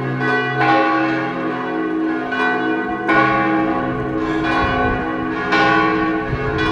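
Basilica church bells ringing the noon peal, a new stroke every second or so, each ringing on under the next over a deep sustained hum.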